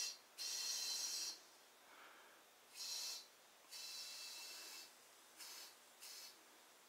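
Compressed air hissing in short bursts through a dial-gauge tire inflator on the inner-tube valve stem of a garden tractor tire, as the tire is brought to about 25 psi. There are about six bursts, two of them about a second long and the rest brief.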